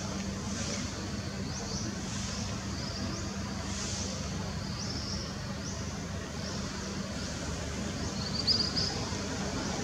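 Steady outdoor background noise with a low hum, overlaid by short high chirps repeating every half second to a second, with a louder run of chirps near the end.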